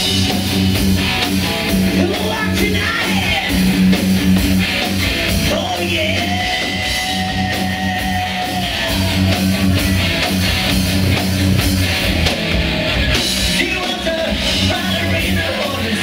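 Rock band playing live: electric guitar, bass and drums, with a long held lead note about six seconds in.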